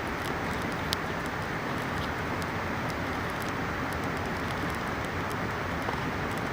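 Steady rush of a mountain river, with a wood campfire crackling over it in scattered sharp pops, one louder about a second in.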